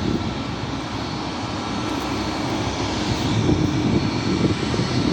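Boeing 737 MAX 8 airliner's CFM LEAP-1B turbofan engines running, a steady rumble and hiss that grows slowly louder.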